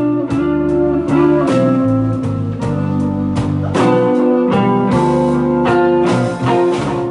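Live blues band playing an instrumental stretch with a steady beat and no singing.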